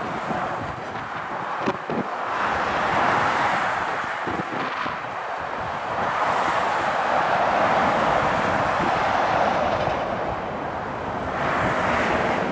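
Motorway traffic: heavy lorries and other vehicles passing at speed, their tyre and engine noise swelling and fading as each goes by, with some wind on the microphone.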